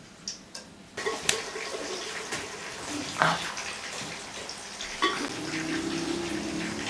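Hot ghee sizzling as marinated chicken leg pieces fry in it. The sizzle starts suddenly about a second in, after a couple of light clicks, and runs on with crackles and a few sharp pops.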